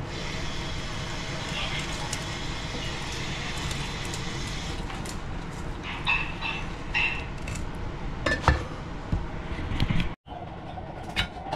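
A cleaver working fish on a wooden cutting board: clinks and sharp knocks of the steel blade against the board, the loudest about eight and a half seconds in, over a steady background hiss.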